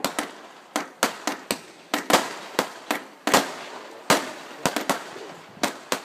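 A multi-shot firework box (cake) firing shot after shot: sharp bangs at an irregular pace of about two a second, with crackling between them.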